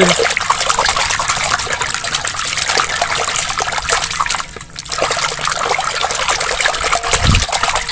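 Hand splashing and scrubbing a plastic doll in a basin of foamy, soapy water: continuous sloshing, dripping and bubbling, with a brief low bump near the end.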